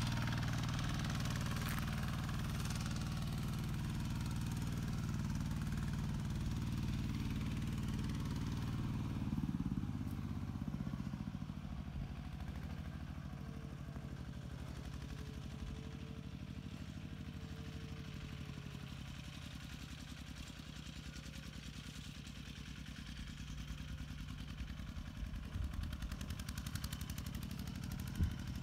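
Single-cylinder Kubota RT120 diesel engine of a two-wheel walking tractor, running steadily as it pulls a plow through mud. It grows fainter about ten seconds in as the tractor moves off, then louder again near the end, with a few clanks at the very end.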